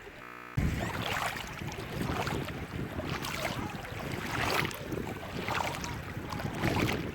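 Wind and sea noise at the North Sea shore, starting abruptly under a second in and swelling and easing roughly once a second.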